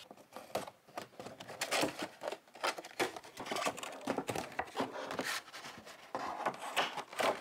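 Hands handling a boxed toy set's packaging, making irregular rustles, crinkles and light taps.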